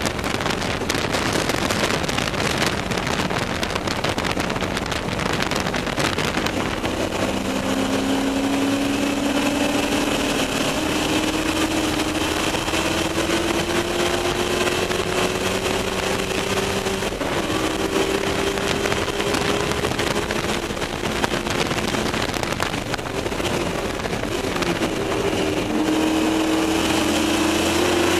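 Ford Mustang race car's V8 engine under way, heard from inside the cabin over heavy wind and road noise that dominates the first several seconds. From about six seconds in the engine note climbs steadily through a long pull, drops briefly near the end, then climbs again.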